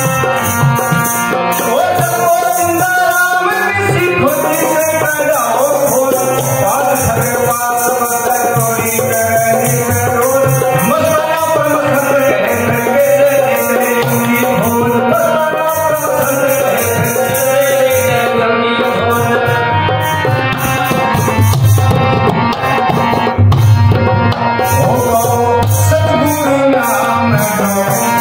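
Rajasthani devotional bhajan played live: harmonium chords and a hand-played dholak keeping a steady beat under a man's singing voice.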